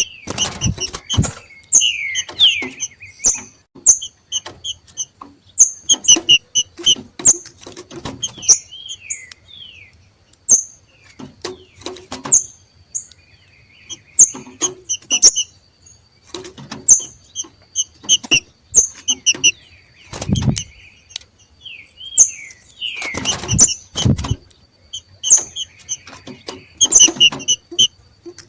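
Two green-winged saltators (trinca-ferro) giving their 'macheado' breeding call: short, sharp, repeated notes with quick downward slides, over and over, traded back and forth. Several low thumps and rustles come through, loudest about two-thirds of the way in.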